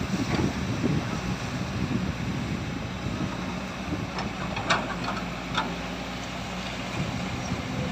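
Heavy diesel engine running steadily at low revs, with two sharp knocks, about four and a half and five and a half seconds in.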